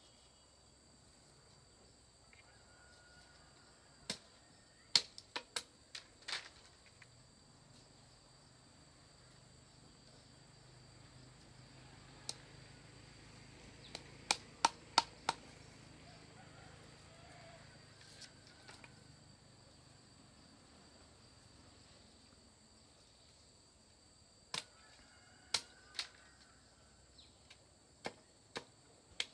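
Sharp hollow knocks of work on bamboo poles, coming in scattered groups. A quick run of four or five comes about fifteen seconds in; others come singly or in twos and threes.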